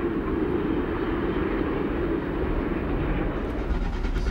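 LNER A3 Pacific steam locomotive No. 4472 running at speed: a steady rush of engine and wheel noise.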